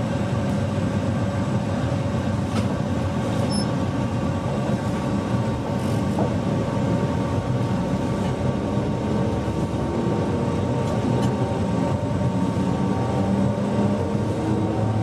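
Electric train pulling away from a standstill, heard from the driver's cab: steady running noise, with a motor whine that rises in pitch near the end as it picks up speed.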